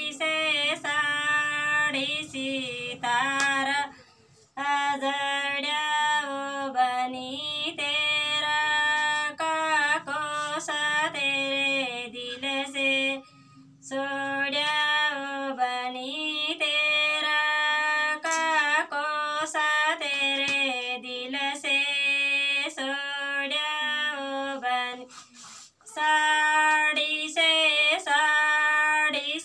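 A woman singing a folk song solo in long melodic phrases, breaking off briefly three times between phrases.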